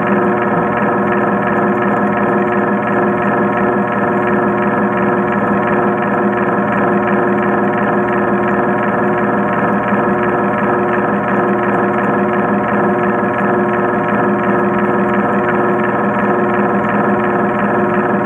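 Steady drone of several sustained tones, with one mid tone pulsing about once a second.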